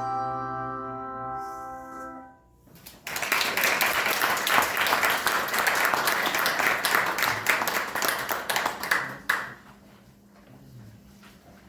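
A handbell choir's last chord ringing and then damped about two and a half seconds in. Audience applause follows for about six seconds and stops suddenly.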